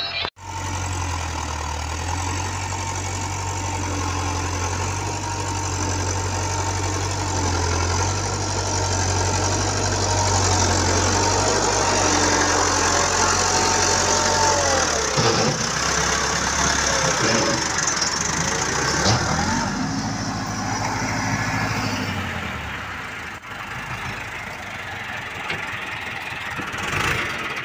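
Massey Ferguson 385 tractor's four-cylinder diesel engine running steadily under load while pulling a cultivator through the soil. The engine note drops and gets quieter about two-thirds of the way through.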